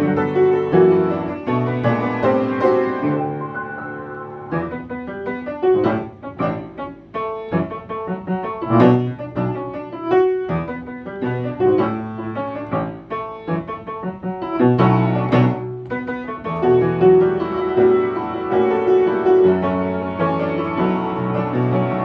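Upright piano played with both hands: chords over a bass line. From about four seconds in the playing thins to sparser, separately struck chords and notes, then fills out again at about sixteen seconds in.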